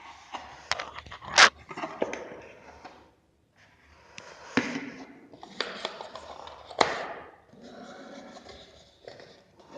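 Handling noise as unboxed items and packaging are moved and set aside on a surface: rustling and scraping with several sharp knocks and clicks, the loudest about one and a half seconds in.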